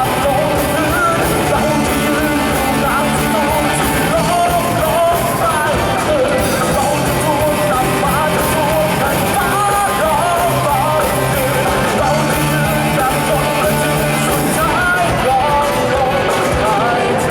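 A rock band playing with a lead singer's voice over the instruments, at a steady loud level.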